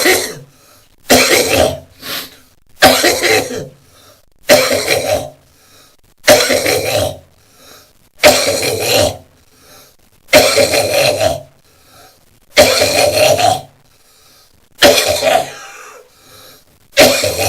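A man coughing hard and repeatedly, one heavy cough about every two seconds, about ten in all. This is a morning coughing fit of a lingering chronic cough, which he says is clearing his tubes and lungs.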